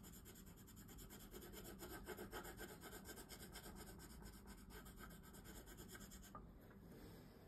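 Wooden coloured pencil scribbling on paper in quick back-and-forth strokes, colouring in a shape; faint, and it stops about six seconds in.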